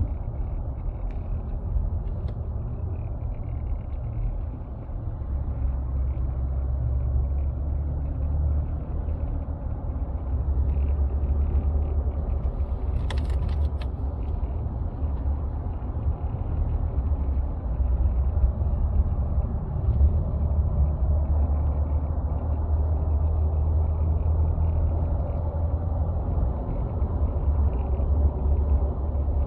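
Cab noise in a 2022 Nissan Frontier while driving: a steady low road-and-drivetrain rumble, with faint intermittent ticking and rattling from the dashboard and one sharper click about midway.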